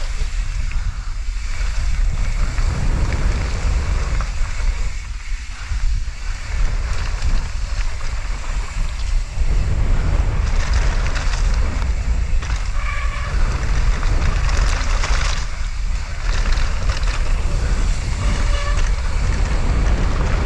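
Wind rushing over a GoPro action camera's microphone during a mountain bike descent of a wet, muddy trail, with a continuous low rumble from the bike over the ground.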